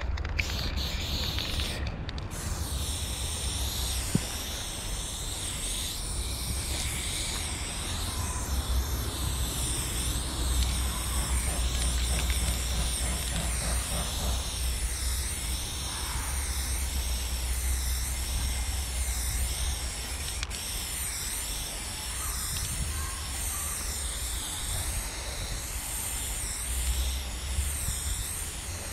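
Aerosol spray paint can spraying in a continuous hiss, with a steady low rumble underneath.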